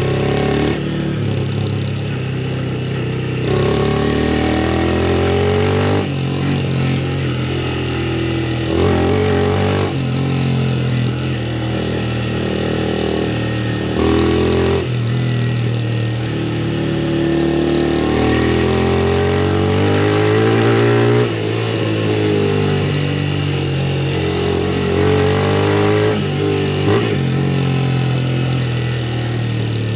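Honda CG 160 Start motorcycle's single-cylinder engine running under way, its pitch rising and falling again and again as the throttle opens and closes.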